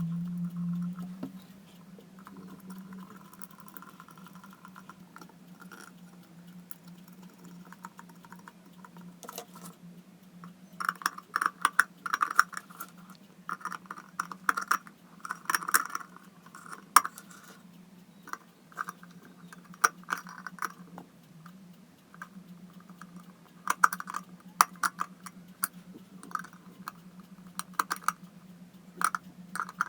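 Plastic and metal parts of an electric kettle being handled and fitted back together: sharp small clicks and taps, sparse at first and coming in quick runs from about ten seconds in, over a steady low hum.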